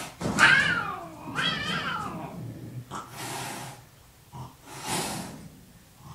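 Two cats squaring off through a window screen: two long, wavering yowls, the first the loudest, then two shorter breathy hisses.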